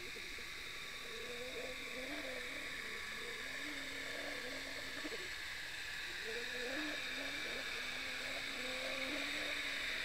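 Muffled sound picked up through an underwater camera housing: a steady hiss with a low, wavering hum that steps up and down in pitch.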